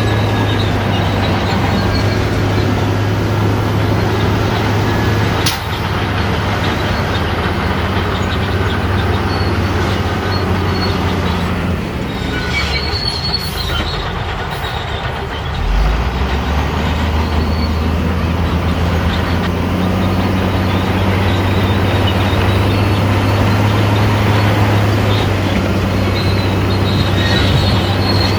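Crawler bulldozer's diesel engine running under load, with steel tracks squealing and clanking. The engine eases off for a few seconds about halfway through, then picks up again.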